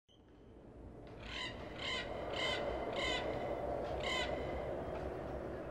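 A crow cawing five times in a row, harsh calls about half a second apart with a longer gap before the last, over a steady background noise that fades in during the first two seconds.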